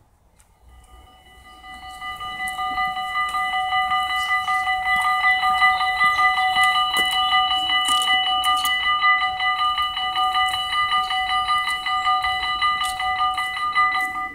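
Dutch level-crossing warning bells, two of them, ringing rapidly as the half-barriers come down. They swell up over the first couple of seconds and stop abruptly at the end, as the barriers close.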